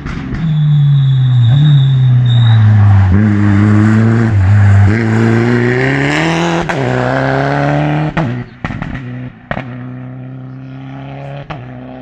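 Rally car engine coming through a bend: the revs dip and blip as it brakes and shifts down, then climb hard and drop at an upshift as it accelerates past, the engine note falling back as it pulls away. A few sharp cracks near the end.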